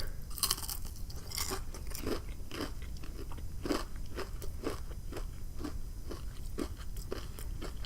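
Close-up crunching and chewing of crispy fried food: a steady, irregular run of short crunches, a few every second.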